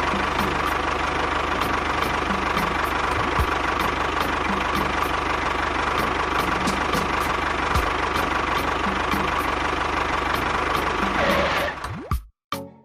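Small engine running steadily at idle, stopping abruptly near the end.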